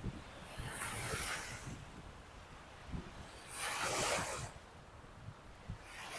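Lake Michigan waves breaking on the beach, whipped up by an approaching storm: three hissing washes of surf a few seconds apart, the last starting near the end. Wind buffets the microphone with a low rumble.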